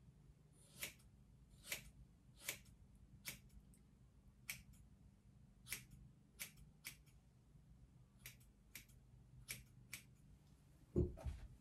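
Scissors snipping across a fringe of hair: about a dozen short, crisp snips at uneven intervals, roughly one every half second to a second. A single dull thump, louder than the snips, comes near the end.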